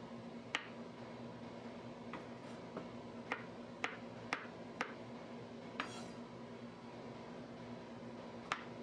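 Kitchen knife slicing mushrooms on a wooden cutting board: the blade taps through onto the board about nine times at uneven intervals. A faint steady hum runs underneath.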